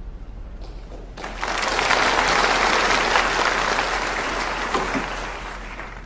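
Audience applauding: the clapping starts about a second in, swells, and fades away near the end.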